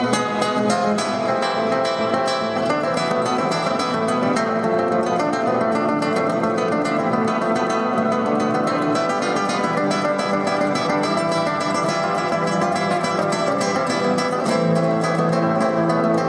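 Solo classical guitar played fingerstyle: a continuous run of fast plucked notes.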